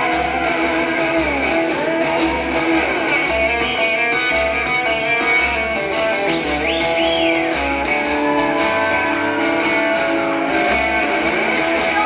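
Live country-rock band playing an instrumental passage: electric guitar leading with bending notes over a steady bass-and-drum pulse, with no singing.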